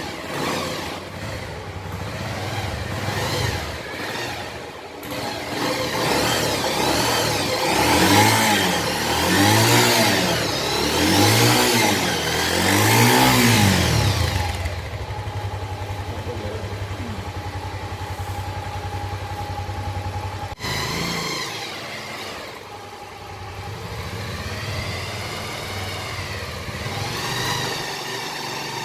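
Restored 2004 Bajaj Pulsar 150 DTSi single-cylinder engine running, blipped up and down about four times in quick succession, then settling to a steady idle. After a sudden break about two-thirds through, it is revved gently again.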